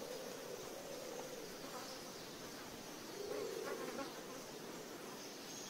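Blowflies buzzing around carrion, a steady faint drone that swells briefly about three seconds in.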